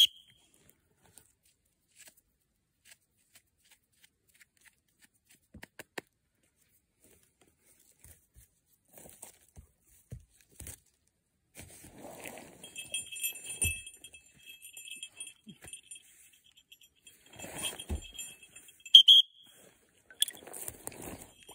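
Hand-digging in forest soil and duff with a knife: scattered soft clicks, then rustling and scraping. Over the second half a high-pitched metallic jingling comes and goes.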